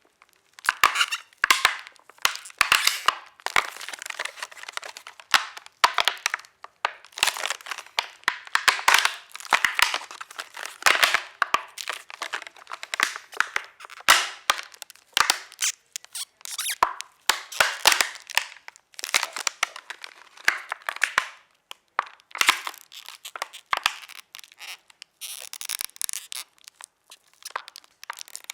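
A crushed plastic soda bottle squeezed and worked at its base, crackling and creaking in dense, irregular bursts: a foley imitation of a creaking wooden floor.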